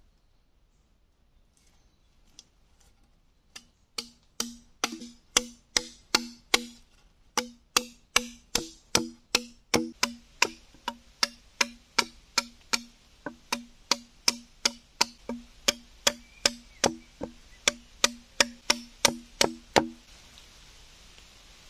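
Machete chopping into a green bamboo stalk: a steady run of sharp, hollow knocks with a short ring, about three strokes a second, stopping near the end.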